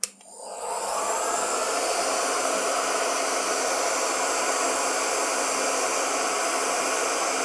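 INGCO HG200028 2000 W heat gun switched on with a click at its first setting (lowest heat, highest airflow). Its fan spins up within about a second into a steady rush of air with a low hum.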